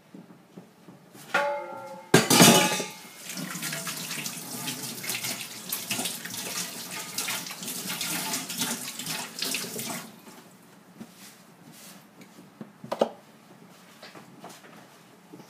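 A short metallic clank and a knock, then a kitchen tap runs into the stainless sink for about seven seconds as hands are rinsed under it. The water stops about ten seconds in, and a light clink follows near the end.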